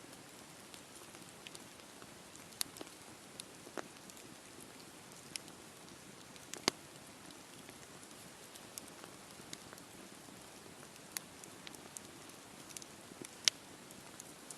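Wood campfire burning with a low steady hiss and scattered sharp crackles and pops, a dozen or so, two of them louder, at about the middle and near the end.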